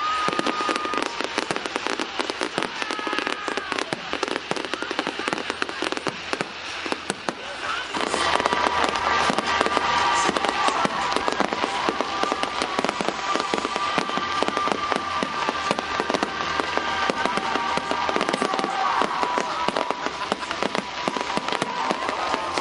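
Public fireworks display: a dense, continuous run of firework bangs and crackles, getting louder about eight seconds in.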